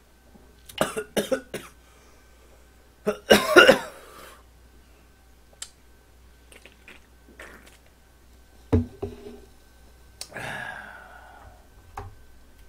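A man coughing and clearing his throat in several short bouts, the loudest about three and a half seconds in, while gulping canned cola.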